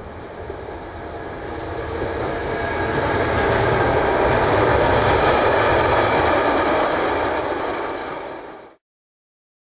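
Electric-hauled container freight train passing close by, the running noise of its loaded wagons rolling over the rails building over the first three seconds and staying loud. The sound cuts off abruptly near the end.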